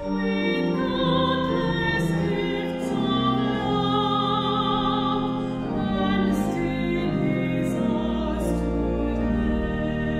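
A woman singing solo in a trained voice with vibrato, over a sustained keyboard accompaniment, in slow held notes.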